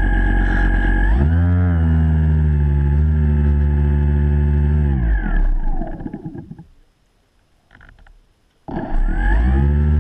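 Radio-controlled model boat's motor running with a steady pitched whine. It speeds up a little over a second in, then winds down with a falling pitch about halfway through. After a couple of seconds of near quiet it starts up again with a rising pitch near the end.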